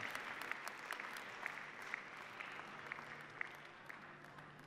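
Audience applause, the claps thinning out and dying away toward the end.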